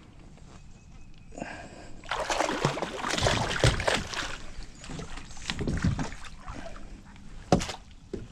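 Water splashing and sloshing beside a kayak for several seconds as a hooked catfish thrashes at the surface, with a sharp knock near the end.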